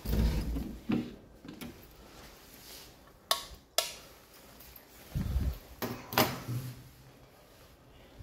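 Two sharp clicks about three and a half seconds in as wall light switches are pressed, among dull thuds and knocks of handling in a small room.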